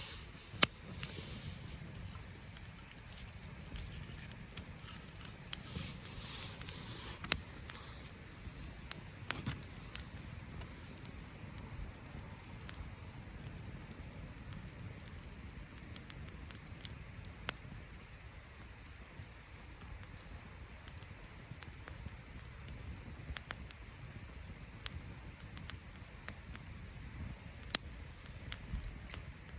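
Wood campfire crackling, with irregular sharp pops and snaps, a few of them much louder than the rest.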